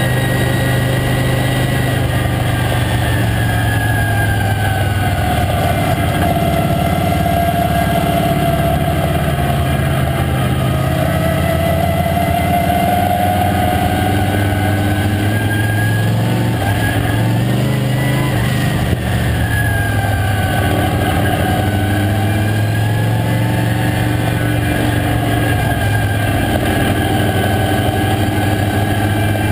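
Late model stock car's V8 engine heard from inside the cockpit, running at race speed, its pitch rising and falling every several seconds as the throttle goes on and off around the dirt oval.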